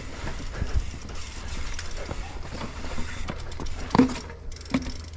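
Mountain bike rolling over a rocky trail: tyres knocking and clattering on rock and the bike rattling, with a steady low wind rumble on the helmet camera. A brief grunt-like sound about four seconds in.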